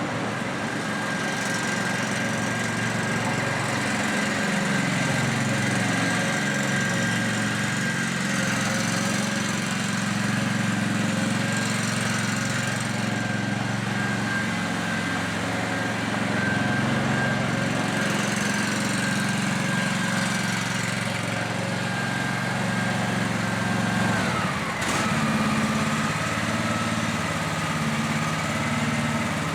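An engine running steadily at an even speed, its pitch settling slightly lower about 25 seconds in.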